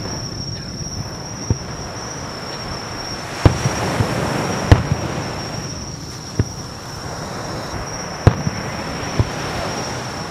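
Aerial firework shells bursting: about seven sharp bangs spaced a second or two apart, the loudest about three and a half and nearly five seconds in. Under them runs a steady high insect trill.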